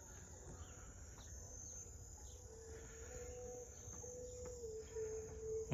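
Faint, steady high-pitched insect chirring, with a faint steady hum joining about two and a half seconds in.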